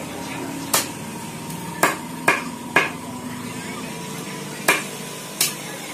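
A large knife chopping raw chicken on a thick wooden log chopping block: six sharp chops at uneven intervals.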